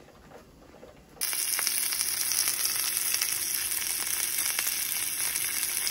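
A strip of meat sizzling in hot oil in a frying pan: a loud, steady hiss that cuts in suddenly about a second in, after a quiet start.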